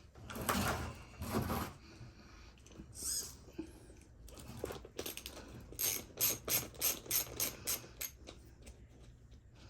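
Small hand tools and metal parts being worked while a front wheel comes off a radio-controlled truck: two scraping rustles in the first two seconds, then a run of about nine sharp clicks, some four a second.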